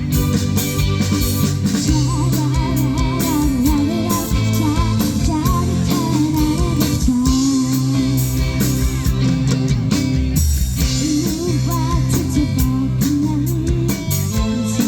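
Live band playing a pop song: drum kit, bass and guitar under a wavering lead melody line.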